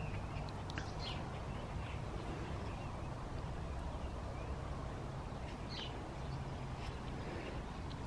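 Quiet outdoor background: a steady low rumble, with a few faint, brief high chirps about a second in and again near six seconds.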